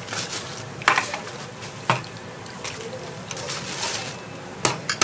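Breaded skewers sizzling in a pot of deep-frying oil, with sharp metal clinks of tongs against a wire mesh strainer and the pot: one about a second in, another a second later, and two close together near the end.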